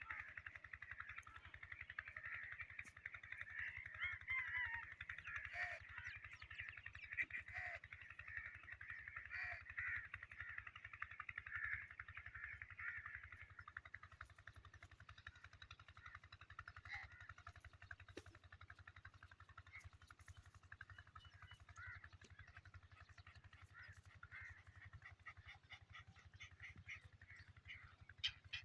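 Faint chorus of many birds chattering and calling together, densest in the first half and thinning out later.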